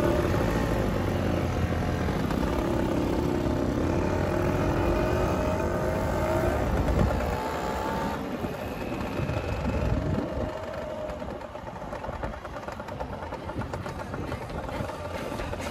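Motor scooter engines accelerating as the group pulls away, engine pitch rising over several seconds, then settling into steady riding with road and wind noise.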